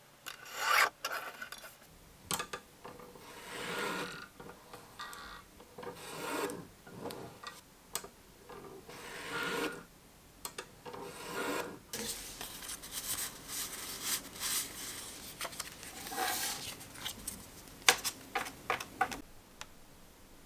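Lever-arm guillotine paper cutter slicing through printed card stock, making repeated noisy cuts about every second or two with paper being handled between them. A quick cluster of sharp clicks comes near the end.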